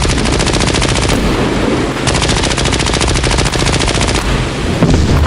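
Automatic gunfire in long rapid bursts, one ending about a second in and another running from about two seconds to about four seconds in, over a constant low battle rumble.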